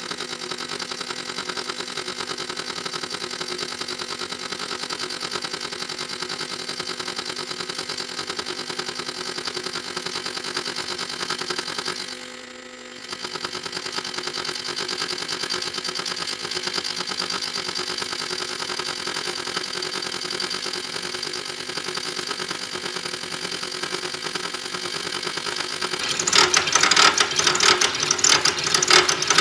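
Machine tool running steadily as it slowly slices through a clamped stack of turned snap-ring blanks, with a brief dip about twelve seconds in. Near the end a louder, rapid rasping cutting noise starts.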